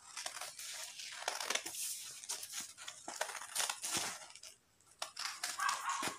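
Scissors snipping through a sheet of paper, a run of irregular rasping cuts and paper rustles with a short pause about four and a half seconds in.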